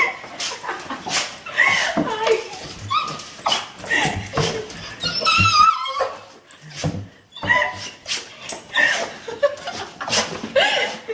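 A dog whining and yipping in excitement at greeting its owner, with many short rising and falling cries and a run of very high squeals about halfway through.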